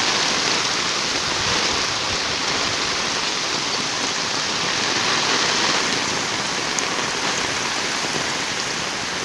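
Heavy tropical rain pouring down in a steady, dense hiss that holds at the same level throughout.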